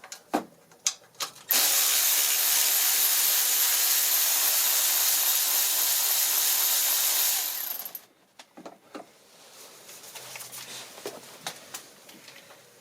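Handheld power tool fitted with an 8 mm socket, running steadily for about six seconds before stopping, as it spins out fasteners on the distributor. A few clicks of the socket and tool being handled come before it and light clicks follow.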